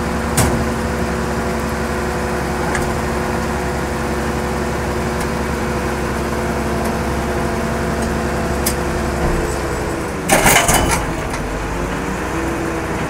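Heavy vehicle engine idling steadily. About ten seconds in, its pitch sags briefly and a short, loud noisy burst with a few sharp clicks cuts across it, after which the engine settles back.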